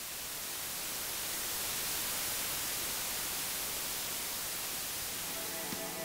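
Static hiss effect: a steady noise, strongest in the highs, swelling over the first two seconds and then holding. About five seconds in, music starts under the hiss.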